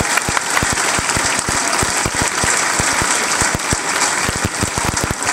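Large audience applauding, a dense, steady sound of many hands clapping.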